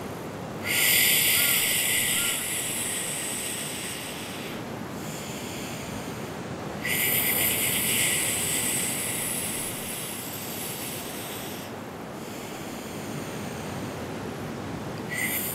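A woman breathing slowly in a pranayama exercise: long hissing inhales drawn through puckered lips, two of them about six seconds apart and a third starting near the end, with quieter gaps for the exhales through the nose between them.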